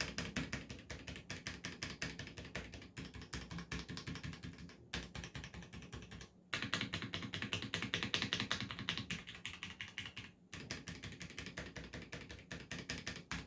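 Cherry MX Board 3.0S mechanical keyboard with Cherry MX Black switches and ABS keycaps being typed on rapidly in three runs, split by short pauses, the middle run the loudest. Little case resonance rings under the keystrokes, even though the board has no reinforcing plate inside.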